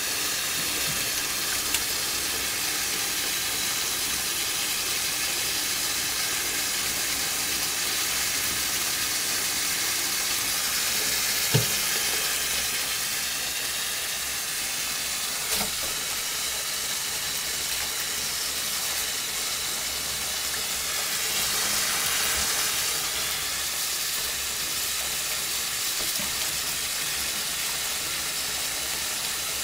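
Kitchen tap running steadily into a stainless steel sink: an even hiss of falling water with splashing as an African grey parrot bathes in the stream. A single sharp click partway through.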